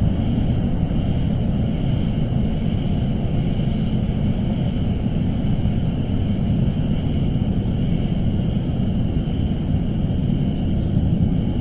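Suspense ambience sound effect: a steady, unbroken low rumble with a faint thin tone above it.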